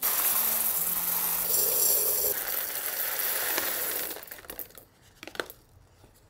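Dark-roast coffee beans pouring from a paper bag into a KORKEN glass jar, a dense rattle against the glass. About four seconds in it thins out to a few last beans clicking.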